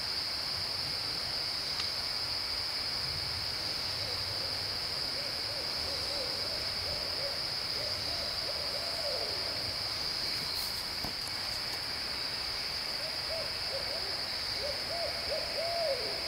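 An owl hooting in reply to a person's imitated owl calls: two runs of short, wavering hoots, the first ending in a falling note, over a steady high insect drone.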